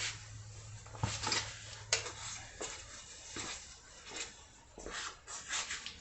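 Scattered light clicks, taps and rustles of hands handling small metal motorcycle parts: the rear axle spacers and wheel hardware.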